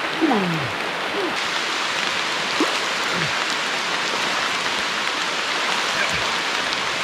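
Steady rain falling, an even hiss. A few short, low sounds falling in pitch stand out over it: one near the start and others about three and six seconds in.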